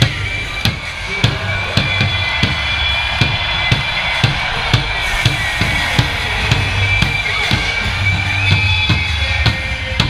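A large drum on a wheeled cart struck hard and steadily, about two beats a second, over arena PA music and crowd noise.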